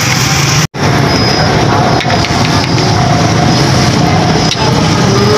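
Steady din of busy street traffic, with vehicle engines running as a constant low rumble. The sound cuts out for an instant under a second in.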